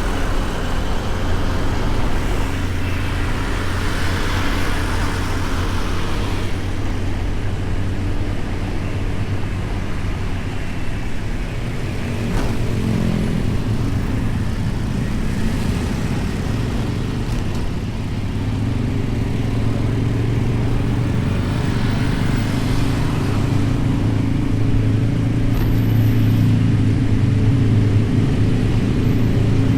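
Honda Beat 110 cc single-cylinder scooter engine running steadily while riding, with road and traffic noise around it, heard from a camera mounted on the scooter. The engine gets a little louder near the end.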